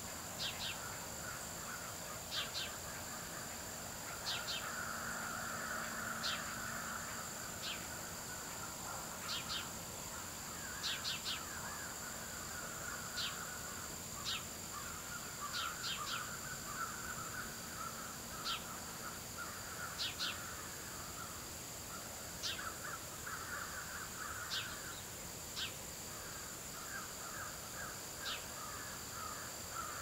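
Dusk countryside chorus of calling birds and insects. Short, sharp high chirps come every second or two, often in quick twos or threes, over a steady thin high-pitched insect drone and a lower chattering that swells and fades.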